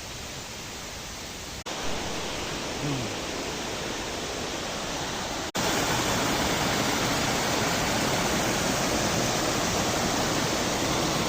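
Steady rushing of a waterfall, an even noise with no rhythm, stepping up in loudness at two abrupt cuts, about a second and a half in and again about five and a half seconds in.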